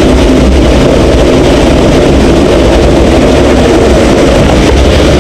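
Waterfall pouring close by: a loud, steady rush of falling water, heaviest in the low end.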